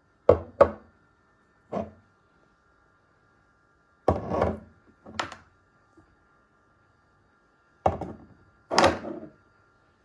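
Glass jars being handled and set down on a stone countertop: about seven short thunks and knocks, loosely grouped in pairs, with quiet between them.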